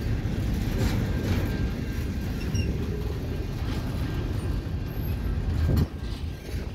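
Intermodal container freight train rolling past close by: a steady low rumble of steel wheels on the rails with scattered clacks, and one loud thump near the end, after which the rumble is a little quieter.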